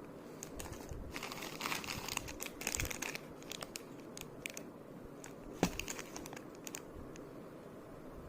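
Packaging crinkling and rustling as it is handled and opened, densest about one to three seconds in, followed by scattered light clicks and one sharper click about five and a half seconds in.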